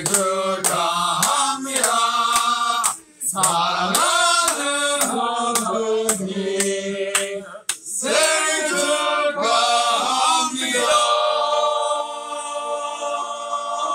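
Group of young men singing a birthday song together without accompaniment, with a few claps in the first half, ending on a long held note from about eleven seconds in.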